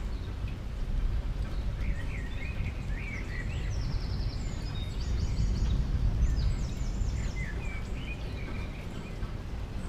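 Steady low rumbling background noise, with scattered short high chirps and a few quick high trills.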